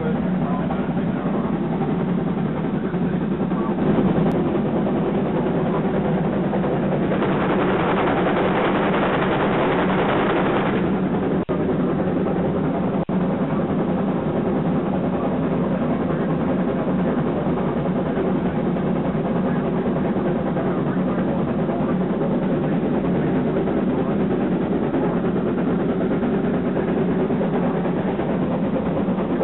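Steady running noise of a Shay geared steam train heard from an open passenger car as it moves along. From about seven to eleven seconds in, the noise grows louder and brighter.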